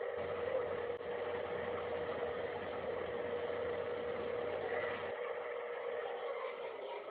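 A steady drone holding one tone, over a low rumble that drops away about five seconds in.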